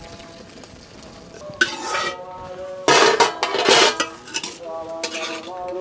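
Metal cooking pots and utensils clanking and scraping in a few clattering spells from about a second and a half in, the metal ringing on after each.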